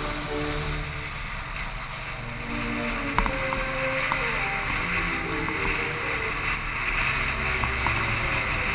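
Motorcycle engine running steadily under way, with wind rushing over the camera's microphone. A single sharp click about three seconds in.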